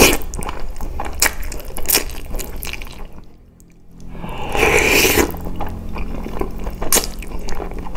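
Close-miked slurping of spaghetti in bolognese sauce and wet chewing, with many small smacking clicks; a brief lull about three seconds in, then a long slurp.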